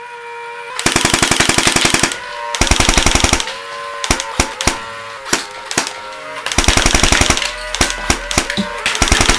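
Homemade cardboard toy assault rifle firing in rapid bursts of sharp clicks, four bursts of about a second each with single shots between. Under the shots runs the steady whine of its small DC motor, which sags briefly at some shots.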